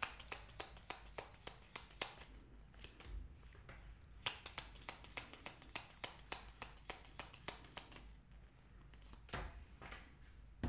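A tarot deck being shuffled by hand: a quick run of light card clicks, about four a second, pausing briefly a couple of seconds in, then resuming and thinning out to a few single clicks near the end.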